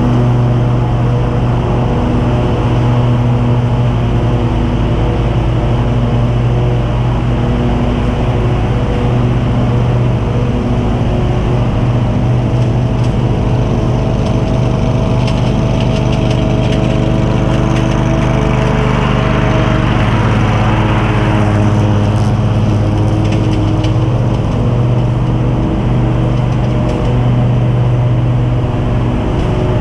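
John Deere QuikTrak stand-on mower's engine running steadily under mowing load, its note shifting slightly a little past the middle.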